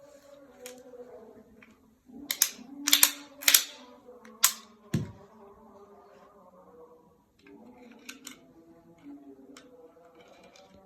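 Sharp metallic clicks and clacks of a Darra-made 30 bore pistol being handled and reloaded. A quick cluster of clicks comes a couple of seconds in, then a dull knock, then a few lighter clicks later on.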